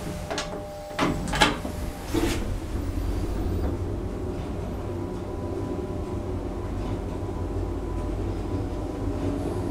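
1980 Schmidt-Medebach passenger lift: a few clunks and knocks in the first two seconds as the doors close and the car sets off, then a steady low rumble with a faint high hum as the car travels between floors.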